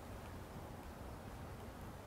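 Faint, steady hiss with no distinct sound in it.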